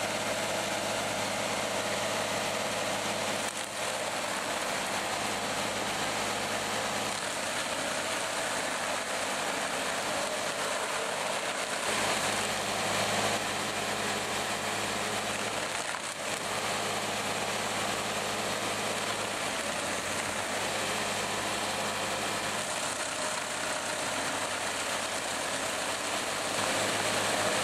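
Stump grinder's 110 hp Deutz engine running steadily under load while its 32-inch cutting disc grinds into a tree stump: a dense, even grinding noise over a steady engine hum.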